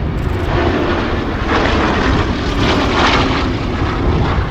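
Bristol Blenheim Mk I's twin Bristol Mercury radial engines running in flight. The engine note drops slightly in pitch over the few seconds.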